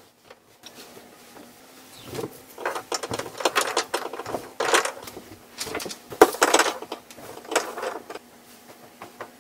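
Blankets being shaken out and flapped down over a bed: a series of fabric swishes and rustles, the loudest about six seconds in, over a faint steady hum.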